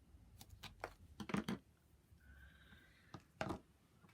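Light taps and rustles of cardstock and paper being handled, about half a dozen sharp little clicks with the loudest near the middle and again near the end.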